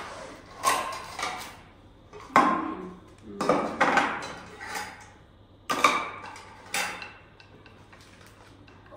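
Dishes and cutlery clinking during a meal: about six sharp knocks with short ringing, spaced irregularly, tapering off near the end.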